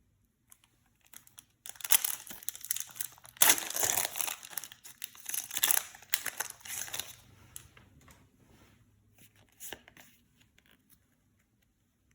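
Foil wrapper of a Yu-Gi-Oh card booster pack being torn open and crinkled by hand, in dense bursts that start about two seconds in and are loudest around four seconds. It then tapers into a few small rustles and ticks.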